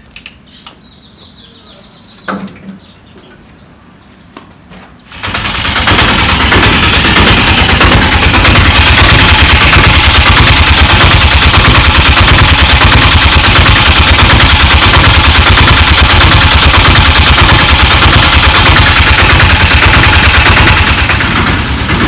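Piaggio Ape auto rickshaw engine starting about five seconds in, then running loud and steady, heard close to its exhaust muffler. Faint bird chirps can be heard before it catches.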